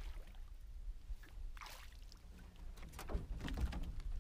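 A hooked bass splashing at the surface as it is reeled in and lifted into an aluminium jon boat, with several knocks and thumps on the hull, the loudest cluster a little after the third second. A steady low wind rumble on the microphone lies underneath.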